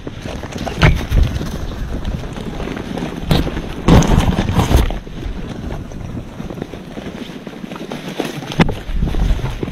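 Wind buffeting the microphone, with scattered knocks and a louder rush of noise about four seconds in.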